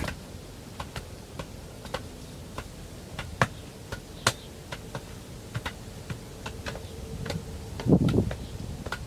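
Scattered sharp clicks and light knocks over a faint steady hum, with a louder burst of low rumbling noise near the end.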